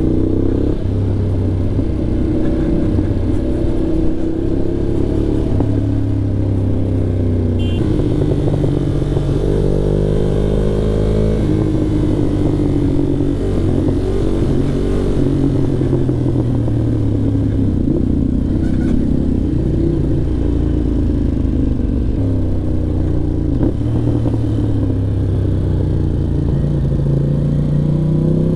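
Ducati Monster 821's 90-degree V-twin engine running under way, its pitch climbing and falling again and again as the throttle is worked and gears are changed.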